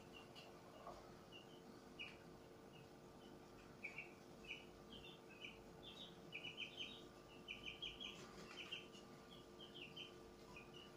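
Faint, irregular high chirping from small birds, busiest in the middle stretch, over a steady low hum.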